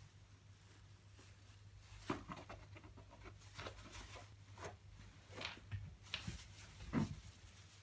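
Thin plastic bag crinkling and rustling in short, irregular bursts as a cat moves about with its head stuck inside it. The sharpest crackles come about two seconds in and again near the end.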